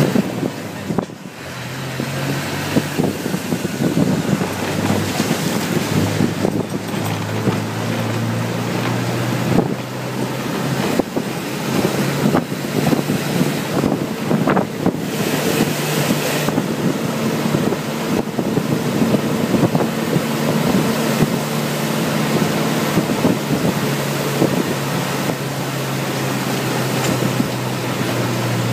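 Bus engine running as the bus drives, its note shifting up and down in steps, with wind rushing in through the open door and window.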